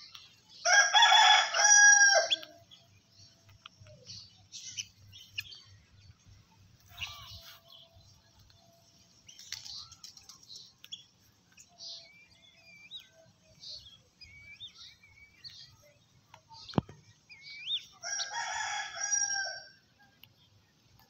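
A rooster crows twice, once about a second in and again near the end, each crow about two seconds long and the loudest sound present. Between the crows, other birds chirp in short, high calls.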